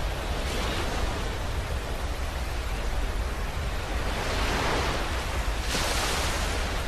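Steady rushing noise over a deep, constant rumble, swelling and fading slowly like surf, with a louder hissing swell near the end; a synthetic space-sound effect.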